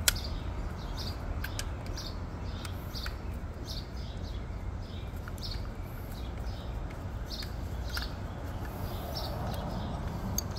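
A small bird chirping over and over, short high chirps roughly once or twice a second, over a steady low outdoor rumble. A single sharp click comes right at the start.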